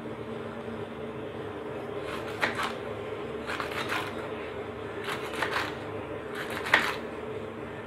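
Kitchen knife chopping okra into rounds on a wooden cutting board: four short runs of quick knocks of the blade on the board, the sharpest near the end, over a faint steady hum.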